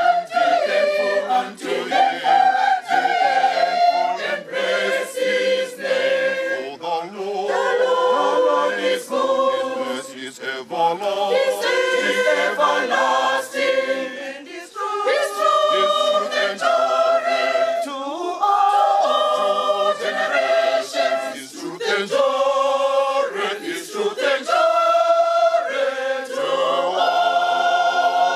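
Mixed church choir of women's and men's voices singing a hymn unaccompanied.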